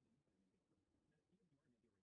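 Near silence: the sound track has cut out.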